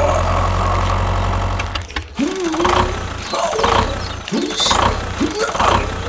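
Small motor of a miniature model tractor running steadily, then stopping about two seconds in. A few short hums and grunts of a person's voice follow.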